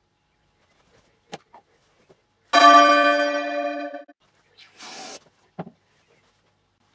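A loud bell-like ringing tone that fades over about a second and a half, after a small click. It is followed by a short hiss, which fits a whipped cream aerosol can being sprayed, and a soft knock.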